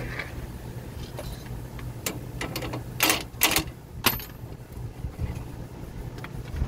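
Metal hand tools and sockets clinking against each other on pavement as they are handled: a few light clicks, then two sharp clanks about half a second apart and a third a little later, over a steady low hum.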